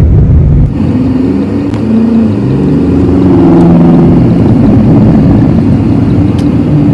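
Car interior noise while driving: a loud engine hum and road rumble heard from inside the cabin. The engine note shifts up and down in pitch as the car drives on.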